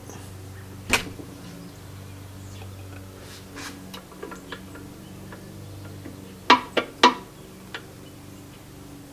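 Sharp metal clinks and knocks of milling-machine parts being handled: one about a second in, then three in quick succession past the middle and a lighter one just after, over a steady low electrical hum.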